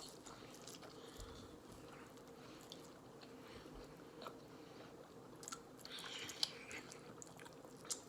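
Faint chewing of spicy instant noodles, with scattered small mouth clicks and a slightly louder bite or smack about six seconds in.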